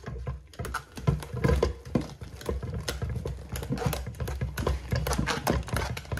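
Hand-cranked rotary food mill turning, its blade scraping over the perforated disc in a rapid patter of small clicks and scrapes as cooked potatoes are pressed through. The patter starts just under a second in and keeps going.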